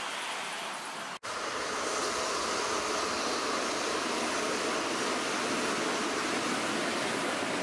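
Container freight train hauled by a red electric locomotive, rolling through a station: a steady rush of wheel-on-rail noise. Just before it, a brief dropout about a second in ends the sound of a passing commuter train.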